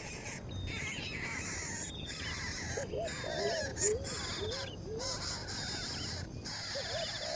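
A bird giving a run of short, repeated arched calls, about two a second, from about three seconds in and again near the end, with fainter higher chirps behind.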